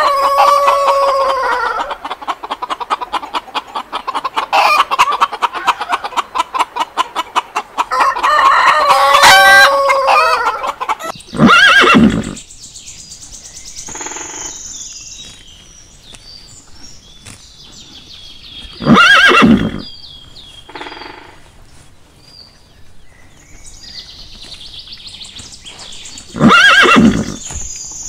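A rooster crows twice with hens clucking rapidly in between. Then a horse whinnies three times, about seven seconds apart, with faint high bird chirps between the calls.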